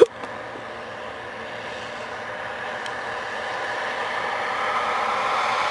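Vehicle engine running steadily and growing gradually louder, after a single knock at the very start.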